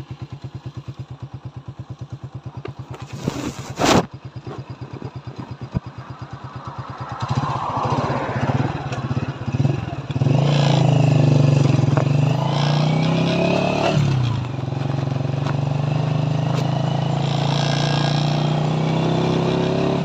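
Honda motorcycle's single-cylinder engine idling with an even, rapid putter, with one sharp loud clack about four seconds in. From about eight seconds in the engine revs up and pulls away, its pitch rising and dropping through the gears, then settles into steady running on the move.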